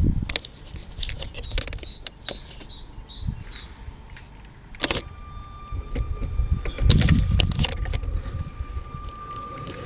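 Small electric motor of a LEGO toy train, with irregular clicks and knocks from the plastic train and track. From about six seconds in a steady thin motor whine sets in, with a heavier low bump around seven seconds.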